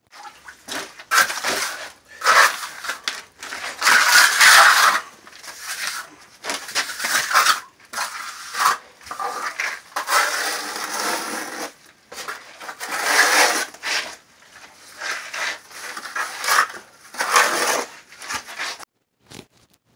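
Trowel scraping wet mortar across a crumbling concrete basement wall in repeated, irregular strokes, roughly one every second or two.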